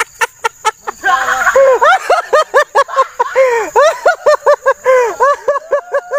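High-pitched laughter: a rapid run of short 'ha' notes, about five a second, each rising and falling in pitch.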